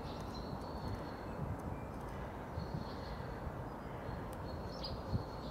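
Outdoor ambience: a steady low rumble with thin, high calls of small birds in the background, and a few soft low knocks scattered through it.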